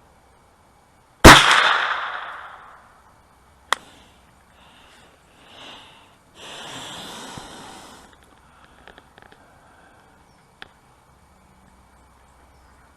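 A rifle shot about a second in, the loudest sound, with a long echoing tail, then a single sharper, quieter crack a couple of seconds later. A rush of noise lasting about a second and a half follows, then a few faint clicks.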